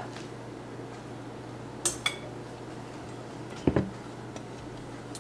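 Two light clinks of a utensil against a dish about two seconds in, the second ringing briefly. Then a single dull knock as the glass cake platter is taken hold of and shifted on the wooden tabletop.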